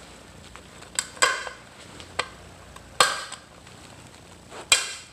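Snap ring pliers clinking against a bearing circlip and the aluminum chain case: several sharp metallic clicks a second or so apart as the cheap pliers fail to pull the clip out.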